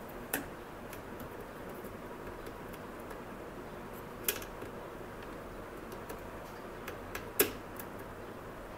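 Soldering iron tip tapping on the pins and pads of a circuit board while desoldering: three short, sharp clicks over a steady low hiss, the loudest near the end.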